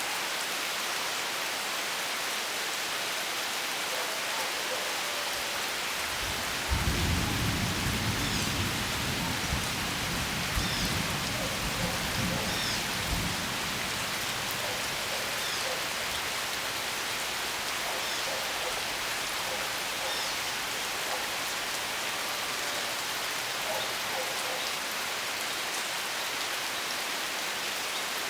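Steady rain falling, with a low rumble of thunder starting about seven seconds in and lasting several seconds.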